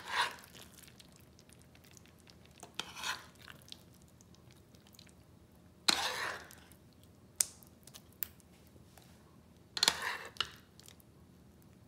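Curry being spooned from a nonstick pan into a ceramic bowl: four or five short wet scoops and plops of saucy chicken, about three seconds apart, with a few sharp clicks of the serving spoon against the pan and bowl.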